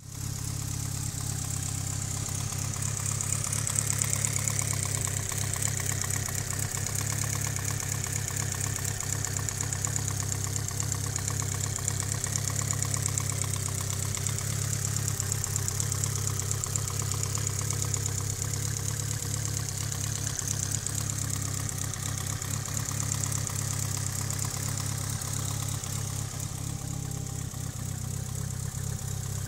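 Mitsubishi Lancer Evolution VIII's turbocharged 4G63 inline-four idling steadily, with a fast, even light ticking over the idle, which the owner takes for lifter tick.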